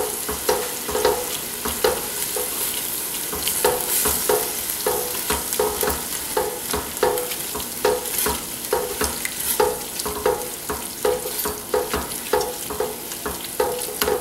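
Spatula stirring and scraping diced tomatoes and vegetables around a nonstick pot in regular strokes, about two a second, over a steady sizzle as the tomato juice cooks off.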